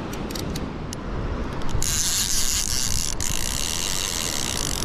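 Shimano TLD 25 overhead reel ticking in scattered clicks. About two seconds in, the clicks run together into a steady high buzz as line is pulled off against the drag by a hooked tuna.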